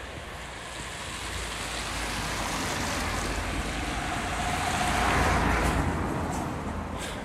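A vehicle driving past, its noise swelling to a peak about five seconds in and then fading.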